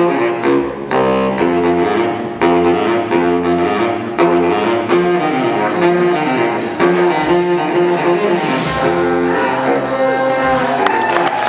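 Jazz big band playing, with saxophones and trumpets sounding harmonized chords over double bass and drums, and cymbal strokes cutting through.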